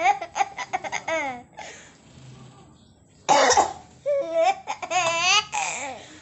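A 5-month-old baby laughing hard in quick strings of high-pitched chuckles, set off by a person's cough. The laughter fades, a single cough comes about three seconds in, and the baby bursts out laughing again right after it.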